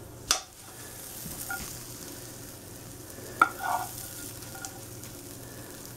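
A spoon knocking and scraping against a skillet while serving saucy chicken out of it: two sharp knocks, one just after the start and one about three and a half seconds in, the second followed by a short ring. A faint steady sizzle from the hot pan's sauce runs underneath.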